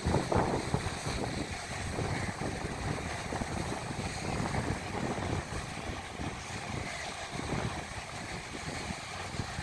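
Wind buffeting the microphone, an uneven gusty rumble, over a steady hiss that may include surf from the nearby shore.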